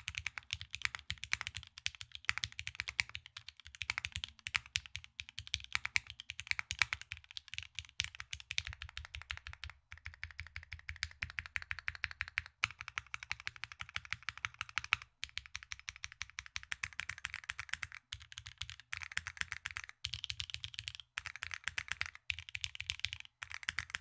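Continuous fast typing on a Wilba.Tech Salvation 60% custom mechanical keyboard: lubed Gateron Ink Black V2 linear switches under GMK keycaps, in a leaf-spring-mounted aluminum case. The keystrokes sound very clean, with no ping or case resonance.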